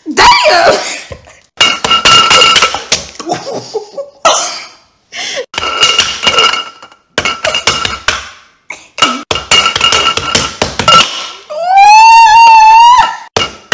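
A clear drinking glass banged down again and again over an egg onto a granite countertop, in quick runs of clinking knocks with the glass ringing after them. Near the end a high-pitched voice holds a wavering cry for about a second and a half.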